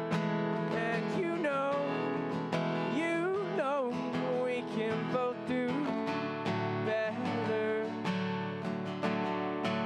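Music led by strummed guitar, with a melody line that bends and slides in pitch.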